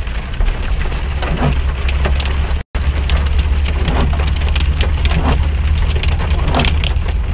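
Rain pattering on a car's windshield, heard from inside the moving car, as a dense scatter of sharp drop hits over a steady low rumble. The sound drops out completely for a moment about two and a half seconds in.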